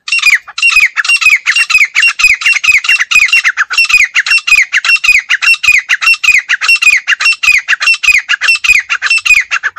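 Female grey francolin calling: a loud, unbroken run of sharp, high falling notes, about five a second, that stops abruptly near the end.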